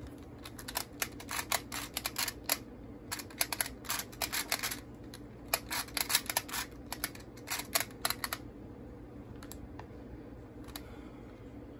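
A Rubik's Clock puzzle being turned fast by hand: bursts of rapid clicking from its dials and pins. The clicking stops about eight seconds in, and a few single clicks follow.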